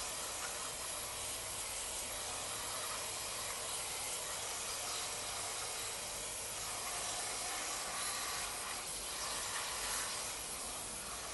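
Aerosol can of brake cleaner spraying in a long, steady hiss, washing brake dust off a drum brake assembly.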